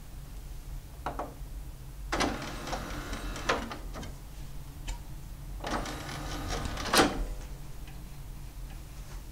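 Marantz CD-40 CD player's motorised disc tray whirring and rattling as it slides out, then again as it is pushed and draws shut, ending in a clunk about seven seconds in. A steady low hum runs underneath.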